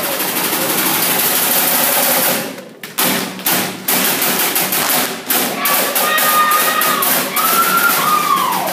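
Crowd noise, then from about three seconds in a row of seated dancers in a Samoan group dance striking out sharp hand slaps and claps together, with a long high cry near the end that drops in pitch.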